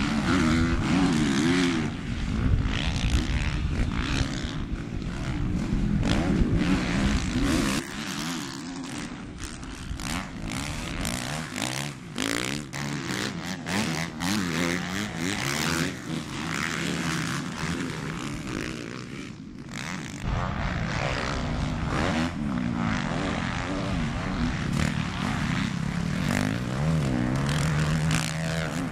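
Several motocross dirt bike engines racing, revving up and down as the riders accelerate and shift. The sound jumps abruptly in level about 8 and 20 seconds in.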